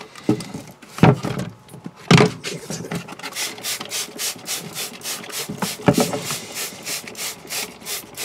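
Hand trigger spray bottle pumped over and over, each squeeze giving a short hiss of cleaner spray, settling into about three squirts a second. A few sharp knocks come in the first half and again around the middle.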